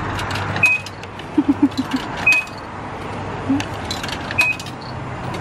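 Self-service car wash pay box beeping three times as money is fed in, short high beeps spaced a second or two apart, with clicks from the slot and buttons over a steady background rush.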